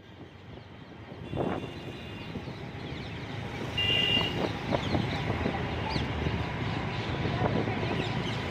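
Metro station noise, growing louder over the first few seconds and then holding steady, with a short high-pitched beep about four seconds in.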